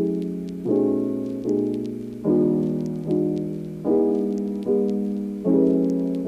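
Background music: soft piano chords struck at an even pace, about one every 0.8 seconds, each left to fade before the next.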